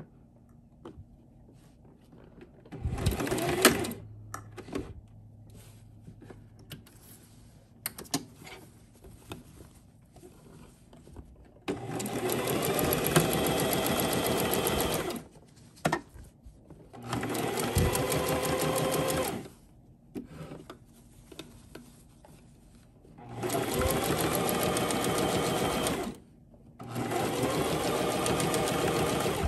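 Electric domestic sewing machine stitching in five separate runs: a brief one about three seconds in, then four runs of two to three seconds each in the second half, each starting with a rising whir. The machine stops and starts as the circular bandana is turned under the presser foot.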